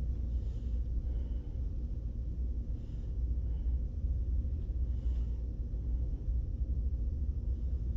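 Steady low room rumble with no clear sound event, and a few faint brief sounds about half a second, three and five seconds in.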